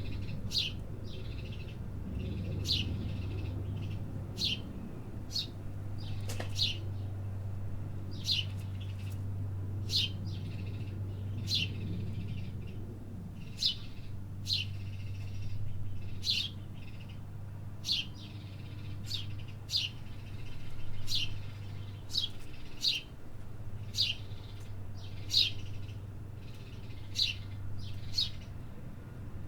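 City birds chirping: short, sharp calls that sweep downward in pitch, repeated roughly every second and often in pairs, over a steady low hum.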